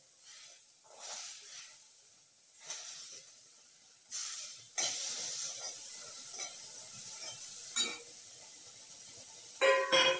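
Green peas tipped into a hot kadhai in several pours, each one sizzling up, then a steady sizzle as they roast while a spatula stirs them with small scrapes and clicks. Near the end there is a loud, ringing clatter of steel on steel.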